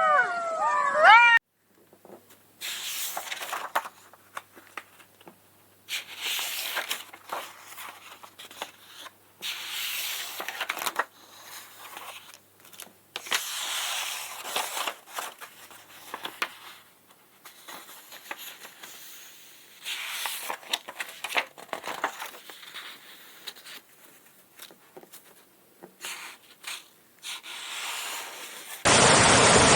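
Irregular bursts of rustling and scraping, like something being rubbed, torn or crunched, with short quiet gaps between them. A high gliding animal call trails off at the very start, and a loud steady rushing noise cuts in abruptly near the end.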